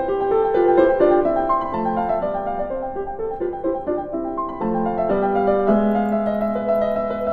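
Background piano music: a gentle melody of quick single notes over chords, settling into longer held chords about five seconds in.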